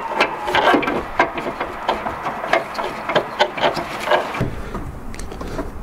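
An LED headlight bulb being twisted and jiggled into the plastic headlight-housing socket by gloved hands: an irregular run of small clicks, knocks and rubbing as it is worked into place.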